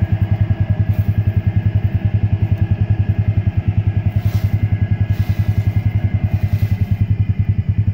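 The Ranger's engine idling with a steady, rapid pulse, and leaves and weed stems rustling now and then as they are sorted by hand in the plastic drum.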